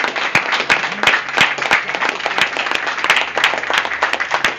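A small group of people applauding, with dense, steady hand clapping.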